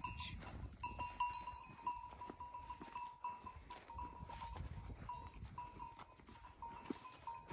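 A flock of sheep and goats with small bells on the animals clinking over and over in a steady jingle, along with scattered knocks and shuffling.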